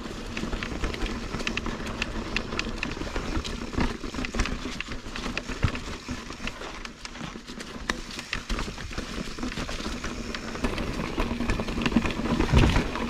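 Mountain bike rolling fast down a dirt singletrack: steady tyre noise on the dirt with frequent sharp clicks and rattles as the bike goes over roots and bumps, and a louder thump near the end.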